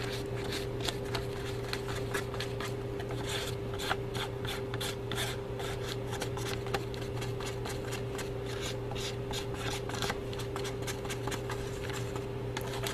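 Many small, irregular plastic scrapes and taps as thick candy-kit batter is scooped out of a plastic tray and worked into a piping bag, over a steady hum.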